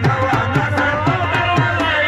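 Live folk music: a hand drum beats a quick, steady rhythm, its low strokes sliding down in pitch, under a wavering melodic line.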